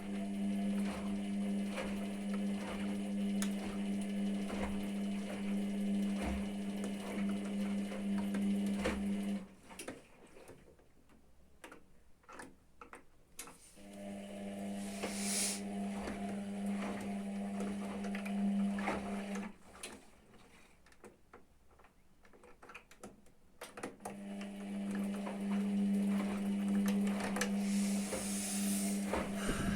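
Washing machine drum tumbling during the rinse: the motor hums steadily for several seconds, stops for a few seconds, then starts again, three runs in all. The stop-and-start rhythm is the drum turning one way and then the other.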